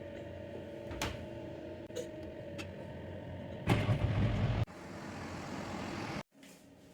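Washing machine running: a steady motor hum with a faint whine, a few light clicks, and a louder rush of churning noise for about a second near the middle. The sound cuts off suddenly near the end.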